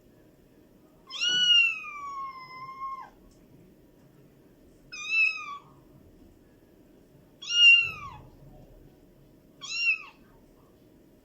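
Kitten meowing, calling for its mother: four high meows a second or two apart, each dropping in pitch at the end, the second drawn out to about two seconds.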